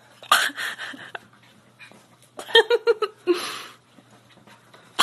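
A corgi vocalising excitedly in play: a harsh bark early on, then runs of quick, pitched yips about halfway through and again near the end, with a short huff between.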